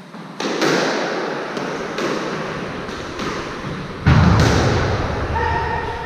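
Squash rally: a squash ball struck by racquets and hitting the court walls and floor, a string of sharp thwacks that echo in the court, with a heavier thud about four seconds in.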